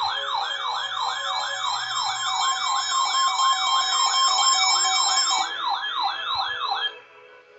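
Electronic siren wailing in a fast up-and-down yelp, about three sweeps a second, with a steady tone joining it through the middle; it cuts off suddenly near the end.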